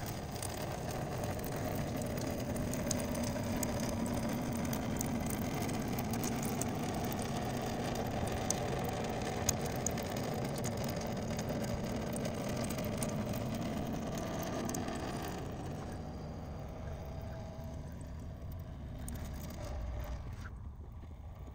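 Water running from two thin drain tubes into a stainless-steel sink and down the plughole, sped up eightfold: a steady rushing with small splashes. It grows quieter about two-thirds of the way through as the tanks run low.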